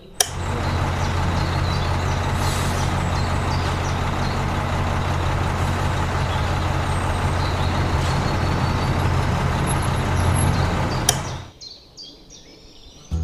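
A heavy vehicle's engine running steadily: a low hum under a loud, even rushing noise, which cuts off about eleven seconds in.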